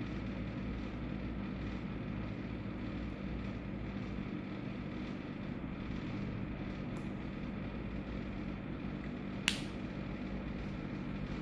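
Steady hum of a room air conditioner, with one sharp click about nine and a half seconds in.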